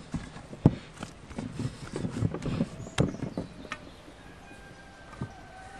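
Hands kneading and pressing a large ball of bread dough in an enamel bowl: irregular soft slaps and sharp knocks against the bowl and wooden table, the loudest about three seconds in. It goes quiet after about four seconds, when the kneading stops.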